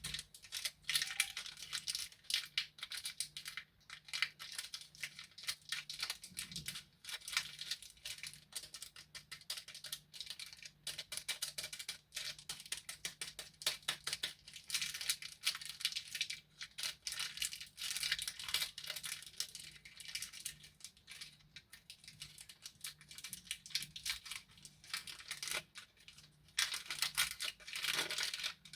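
Plastic candy wrappers being handled and crinkled, a dense, continuous run of small crackles.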